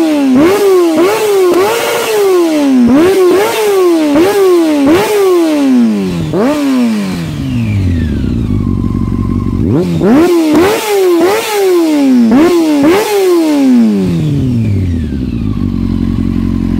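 Honda CBR600F inline-four revving through an aftermarket LeoVince silencer with its dB killer baffle removed. It gives a run of quick throttle blips, each rising sharply and falling back, settles to idle about halfway, then blips again in a second run before dropping back to idle near the end.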